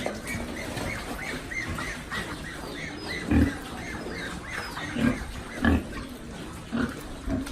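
Pigs grunting in short, loud grunts several times, over a steady run of short, high chirping calls, about three a second.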